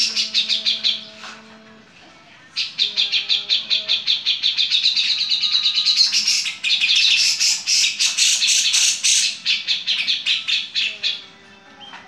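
Cucak jenggot (brown-cheeked bulbul) giving its harsh chattering song: fast runs of rapidly repeated notes in three bursts, a short one at the start and then two long ones of several seconds each.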